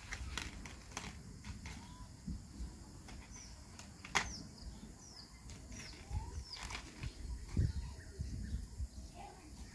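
A small bird chirping several times in short, quick notes that fall in pitch, over low rumbling and a few sharp clicks and taps.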